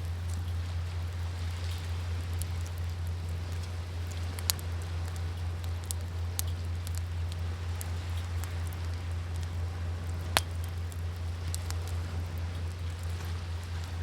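Wood fire crackling with scattered small clicks and a few sharp pops, the two loudest about four and a half and ten seconds in, over a steady low rumble.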